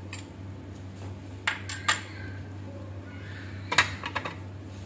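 Kitchen utensils clinking against a metal wok and dishes: two sharp clinks about a second and a half in and a short cluster of clinks near the end, over a low steady hum.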